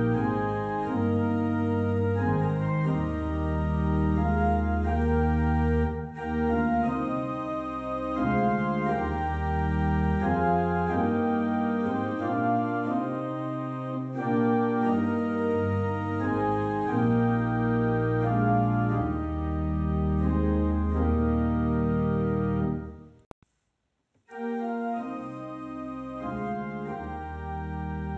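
Church organ playing a hymn in slow, held chords. About 23 seconds in it cuts to silence for a moment, then organ music comes back more quietly.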